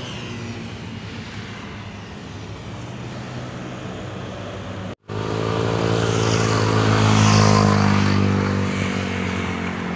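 Road traffic on a city bridge: a steady hum of passing vehicles, then, after a split-second break about halfway, a motor vehicle engine passing close, swelling to its loudest a couple of seconds later and easing off.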